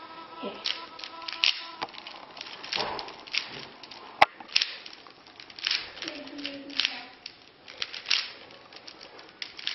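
Plastic speed cube (Rubik's-type puzzle) being turned rapidly by hand: a fast, irregular run of clicks and clacks as the layers snap round, with one sharper crack about four seconds in.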